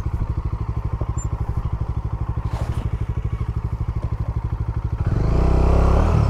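Bajaj Dominar 400's single-cylinder engine idling with a steady, quick pulse, then revved up and louder about five seconds in, easing off again near the end.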